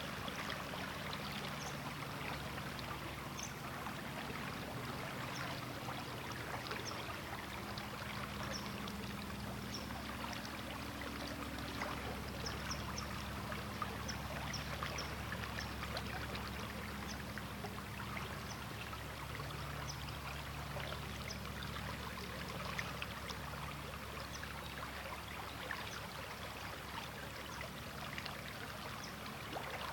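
River water flowing steadily over a shallow bed, with a continuous rush and many small splashes and bubbling ticks.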